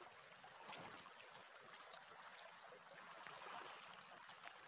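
Faint small waves lapping and trickling among shoreline rocks, under a steady high buzz of insects.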